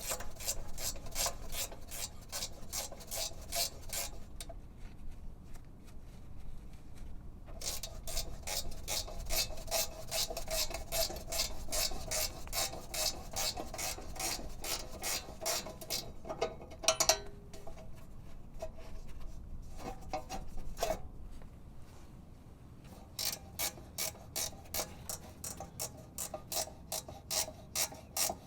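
Hand ratchet wrench clicking in long runs of about four to five clicks a second as a loosened bolt on the rear brake caliper is spun out, with two short pauses and a single louder knock about 17 seconds in.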